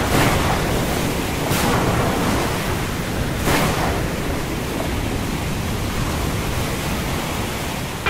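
Stormy wind-and-surf ambience: a steady rushing roar that swells louder twice in the first four seconds.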